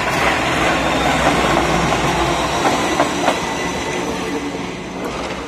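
Diesel-electric locomotive running light and passing close at low speed: its engine runs under a steady clatter of steel wheels on the rails. Two sharp wheel clacks come about three seconds in, and the sound fades as it moves away.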